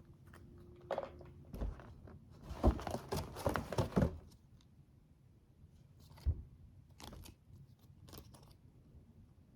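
Hands handling and crinkling cosmetic sample packaging, with a dense stretch of rustling and small knocks between about two and four seconds in, then a few isolated clicks and rustles.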